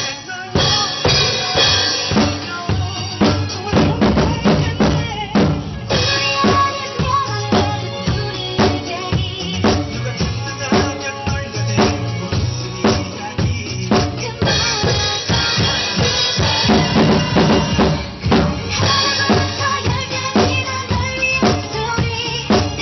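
Acoustic drum kit played in a steady groove, with bass drum, snare and cymbals, along to a pop song's backing track.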